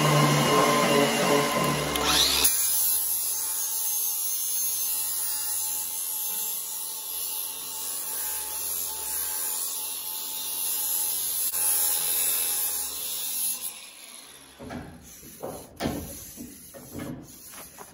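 Angle grinder with a flat disc grinding the steel rails of a chainsaw guide bar to dress them square: a motor whine for the first couple of seconds, then a steady high grinding hiss that fades out. Near the end, a few sharp knocks and scrapes as the side burrs are taken off the rail.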